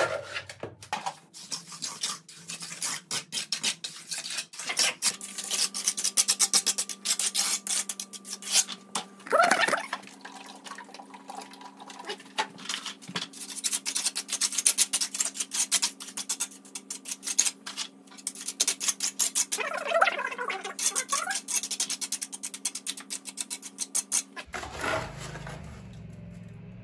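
Concrete being worked by hand: a long run of quick, rough scraping strokes that stop near the end, with a steady hum underneath most of the time.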